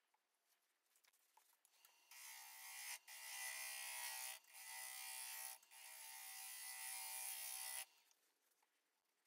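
Gouge cutting a spinning spalted maple bowl blank, its voids filled with epoxy putty, on a wood lathe: a steady hiss that starts about two seconds in, breaks off briefly three times, and stops near the end.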